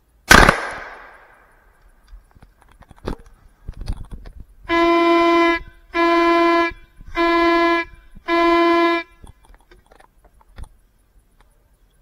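One loud gunshot from the hunter's own gun, its report fading over about a second and a half. A few seconds later a hunting horn sounds four long, even blasts at one steady pitch, each just under a second with short gaps between.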